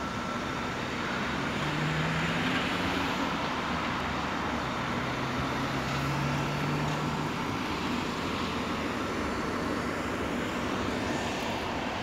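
Steady background motor traffic noise, with a low engine hum through the middle several seconds.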